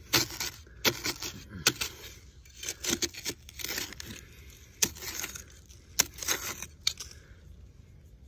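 Steel blade of a 4PATRIOTS Ready Shovel, a small high-carbon-steel survival shovel, digging into sandy soil: a series of short scraping, crunching strokes about one a second as it cuts in and scoops dirt out, stopping about seven seconds in.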